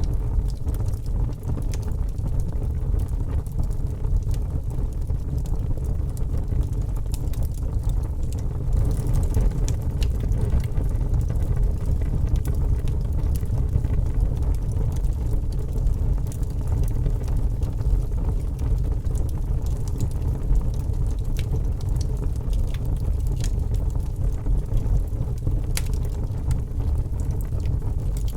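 Fire crackling: a steady low rumble with scattered sharp crackles and pops, more frequent from about nine seconds in.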